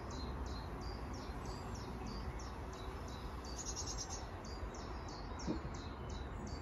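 A small bird repeating a short, high, falling call about three times a second, over a steady low rumble.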